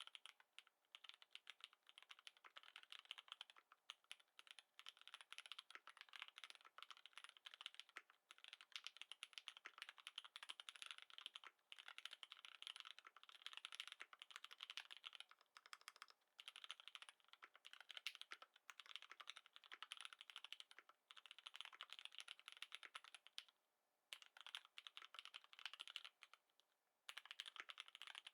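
Typing on a Lin Works Dolinger Re mechanical keyboard with lubed Cherry MX Black linear switches: a fast, continuous stream of keystrokes that pauses briefly a few times.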